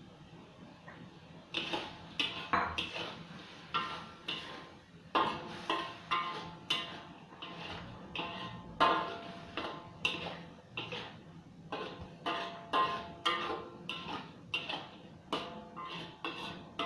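Metal ladle scraping and knocking against a stainless steel wok while stir-frying prawns, starting about a second and a half in at roughly two strokes a second, the wok ringing briefly after each knock.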